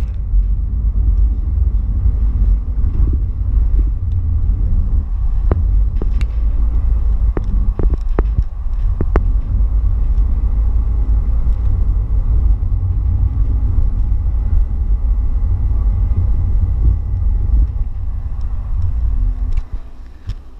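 Steady deep rumble of a San Diego Trolley light-rail car moving along its track, heard from inside the car, with a few sharp knocks around the middle. The rumble falls away sharply near the end.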